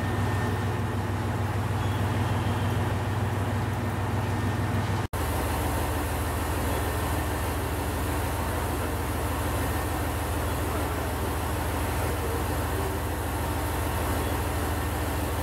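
HOT7000-series diesel express train pulling away, its engines giving a steady low drone. After a sudden cut about five seconds in, a steady low hum of station platform ambience.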